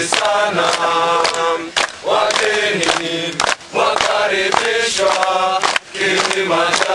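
A group of male voices singing a Swahili song in chorus, chant-like, over a steady percussive beat.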